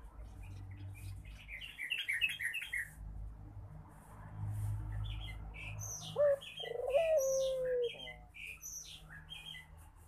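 Small birds chirping in quick runs of short notes. About six seconds in, a short lower call joins them, stepping up and then gliding down in pitch.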